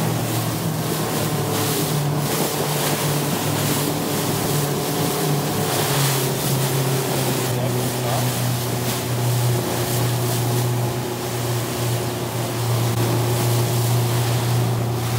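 Motorboat engine running steadily at speed, its pitch dropping a little about six seconds in, under the rush of water and wind on the microphone.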